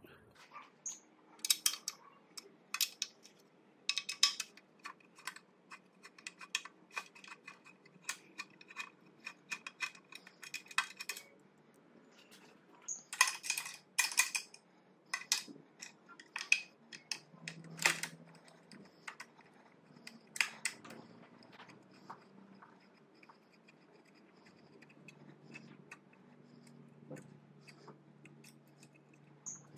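Ratchet wrench clicking in runs as the bash guard bolts are undone, about two clicks a second at first, with scattered clinks of metal tools and parts being handled.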